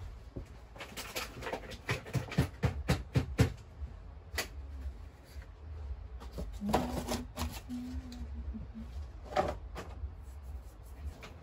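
Handling noise from potting seedlings on a bench: a quick run of clicks and knocks from small plant pots and trays being moved, then a few scattered knocks.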